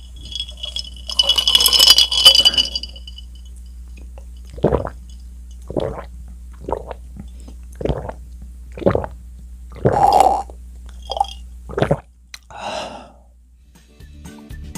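A glass jar of drink clinks and rattles as it is picked up. Then a man drinks through a straw, with short gulping swallows about once a second. Outro music starts near the end.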